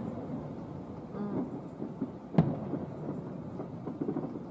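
Aerial fireworks shells bursting: one sharp bang about two and a half seconds in, over a continuous low rumble of further bursts.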